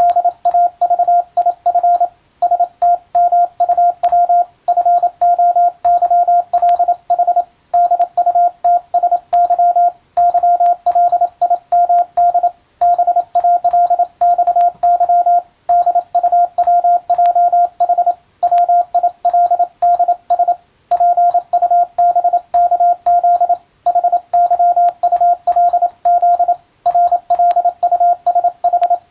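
Morse code practice tone: a single steady pitch keyed rapidly into dots and dashes, with brief gaps every two to three seconds between words.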